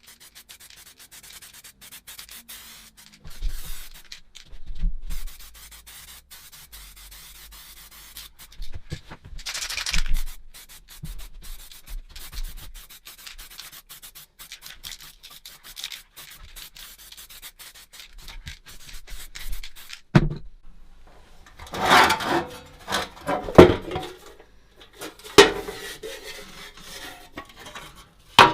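Hand sanding of rusty metal: irregular rubbing strokes of an abrasive, coming in spells, loudest and harshest near the end.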